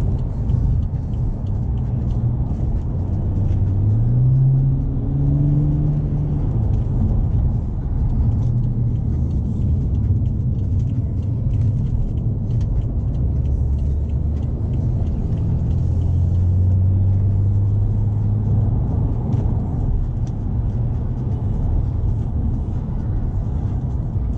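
A BMW 535d's twin-turbo straight-six diesel with a straight-piped exhaust, heard from inside the cabin while driving: a deep, loud exhaust drone over road rumble. The engine note climbs about four seconds in, holds higher for a moment and drops back, then settles into a steady drone.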